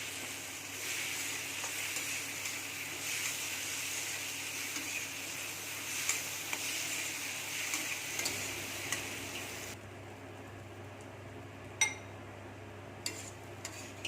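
Bitter gourd (karela) sizzling as it fries in oil in a pan, with a spatula stirring it. The sizzle stops about ten seconds in, and a few sharp clinks of a utensil against the pan follow.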